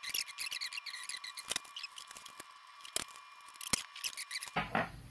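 Small clicks, knocks and light scraping of small metal parts and hand tools being handled while the pedal's casing is taken apart, a few sharper knocks among them. Near the end the background switches abruptly to a low steady hum.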